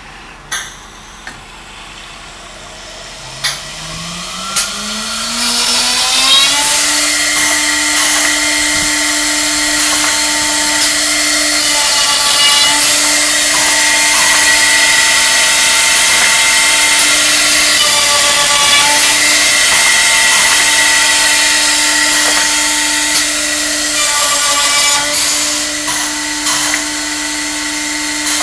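US Concepts CRD-300 automatic handrail drilling machine: a few clicks, then the drill spindle motor spins up with a rising whine from about three to six seconds in. It then runs at steady speed with a loud hiss as the bit bores baluster holes in the wooden handrail. Its tone shifts briefly about every six seconds as it moves from one hole to the next.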